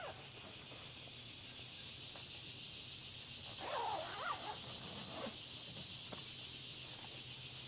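Steady high drone of insects in the trees, with a short animal cry that rises and falls, like a cat's meow, about four seconds in.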